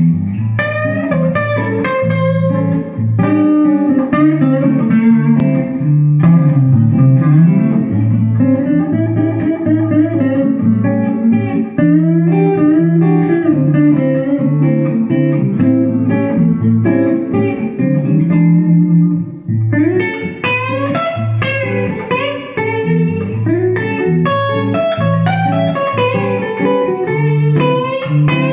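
Flight TL10M Telecaster-style electric guitar with an ash body, played through an amplifier: melodic lines and picked notes over steady low notes, with a short break about two-thirds of the way through.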